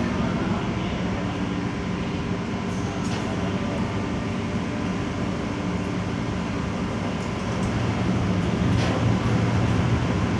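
Car ferry's diesel engines running steadily, a low drone with a few steady hum tones, growing a little louder about eight seconds in as the ship manoeuvres to berth.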